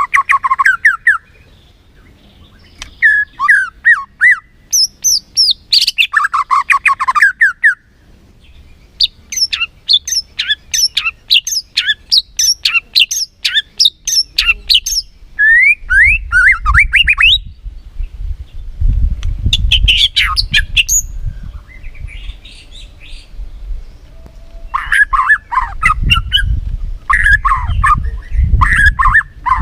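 White-rumped shama singing loud, varied phrases of whistles, glides and fast runs of sharp notes, with short pauses between phrases. A low rumble sits under the song in the second half.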